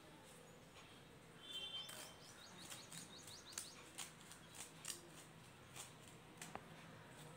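Crushed mothball powder being sifted through a plastic-rimmed sieve onto brown paper: faint, irregular soft ticks and scratches as the sieve is shaken, starting about one and a half seconds in.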